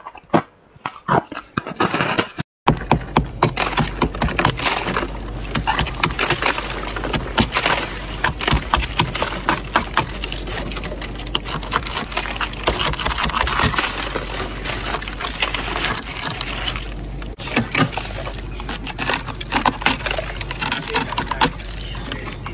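A few crisp crunches of freezer frost, then, after a sudden break about two and a half seconds in, fingers scraping packed frost lining a chest freezer: a dense, continuous crackling scrape over a steady low hum, pausing briefly near the end.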